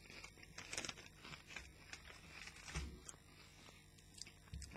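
Faint, scattered crunching from potato crisps being chewed.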